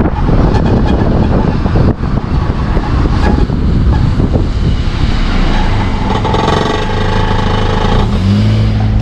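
Toyota Ractis being driven: loud, dense low-pitched running noise of the car on the move, with a steady pitched whine for a couple of seconds in the second half. This is the abnormal noise while driving that the owner is trying to trace, unsure whether it comes from the engine.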